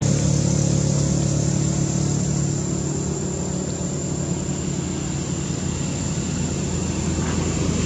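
Steady low hum of an engine running, with a thin steady high-pitched tone above it.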